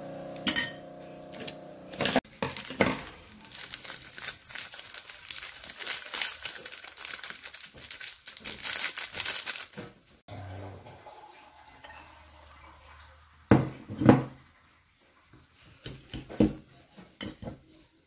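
Plastic seasoning sachets from instant noodles crinkled and torn as their contents are squeezed and shaken over a ceramic bowl. Near the end come a couple of loud knocks and then lighter clinks of a metal fork against the bowl as the noodles are mixed.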